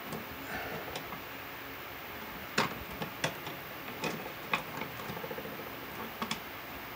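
Scattered sharp clicks and taps of stiff copper house wiring and a wire nut being pushed and folded back into an electrical outlet box, with a short quick rattle a little past halfway.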